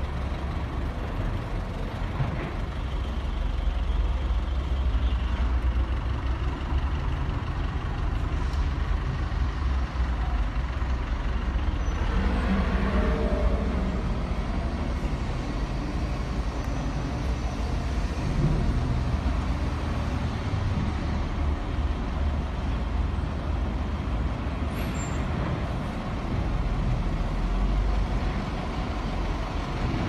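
XCMG XS143J vibratory road roller's Shanghai Diesel 114-series engine running steadily, a low even rumble with no change in pitch.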